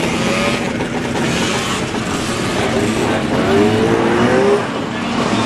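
Vintage snowmobile engines running, one of them revving with a rising pitch from about three and a half to four and a half seconds in.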